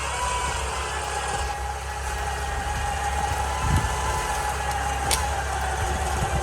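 Jeep engine idling with a steady low hum while its electric winch runs with a steady whine that drifts a little in pitch. A single sharp click comes about five seconds in.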